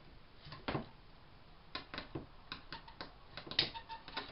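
Irregular small clicks and taps of a screwdriver loosening the screws on a hedge trimmer's housing, with the loudest cluster about three and a half seconds in.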